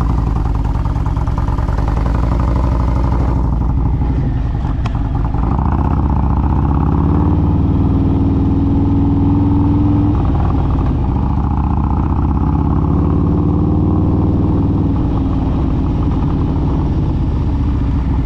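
Harley-Davidson Milwaukee-Eight V-twin touring motorcycle running loud on the move, pulling away in first gear with no clutch lever as the Rekluse automatic clutch takes up drive. Engine pitch rises as it accelerates, drops back about ten seconds in, then rises again.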